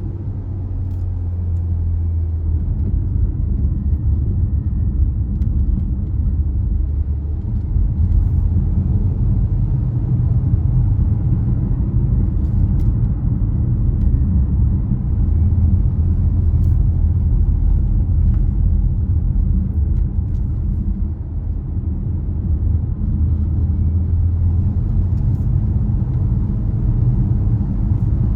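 Car driving on a wet road: a steady low rumble of engine and road noise with a light hiss, and a few faint clicks scattered through.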